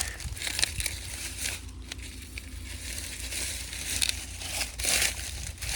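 Dry corn stalks, leaves and husks crackling and crunching in irregular bursts, over a low steady rumble.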